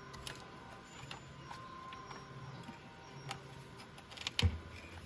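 Scattered small clicks and taps of wiring and plastic parts being handled, with a heavier knock about four and a half seconds in.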